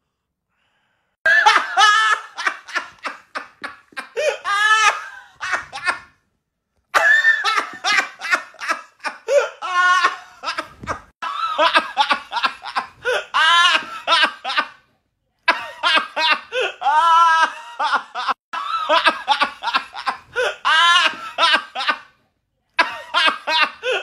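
Men laughing hard in rapid, loud ha-ha bursts, clip after clip, with short dead-silent breaks where one clip cuts to the next. The laughter starts about a second in.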